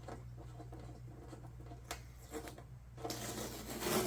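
Rubbing and scraping sounds of hand work, light at first, then a louder, longer scratchy rub about three seconds in, over a steady low hum.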